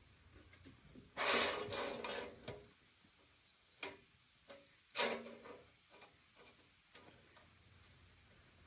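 Handling noises from assembling a metal griddle stand: a scraping rattle about a second in, then a few sharp knocks and lighter clicks of parts being fitted together.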